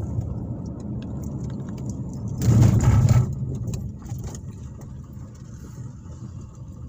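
Car's road and engine rumble heard from inside the cabin while driving, with a louder rush of noise lasting under a second about two and a half seconds in; the rumble drops quieter after about four seconds as the car slows through a turn.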